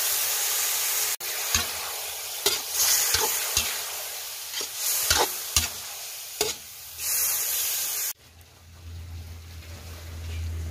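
Marinated pork slices sizzling loudly in a hot wok, just added with their marinade, while a spatula scrapes and knocks against the pan a dozen or so times as the meat is stirred. The sizzle cuts off suddenly about eight seconds in, leaving a quieter low rumble.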